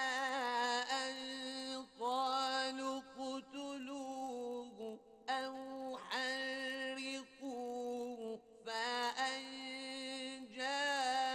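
Quran recitation in the slow, melodic tajweed style: a single voice holding long, ornamented notes, in phrases broken by short pauses for breath.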